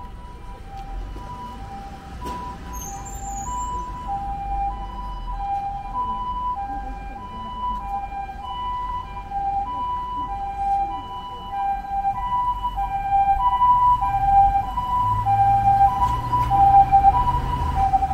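Japanese ambulance siren sounding its two-tone 'pee-poh' call, a high and a low tone taking turns about every half second, getting louder as it approaches. A low vehicle rumble joins near the end.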